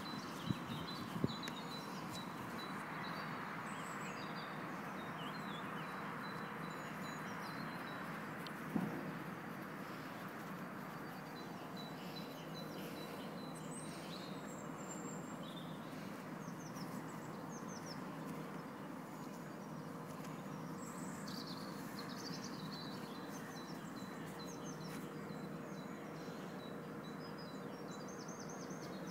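Birds chirping and calling over a steady background of outdoor noise, with a couple of short knocks near the start and another about nine seconds in.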